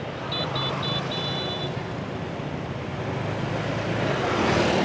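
Road traffic hum with a run of short, high beeps in the first two seconds. The sound grows louder near the end.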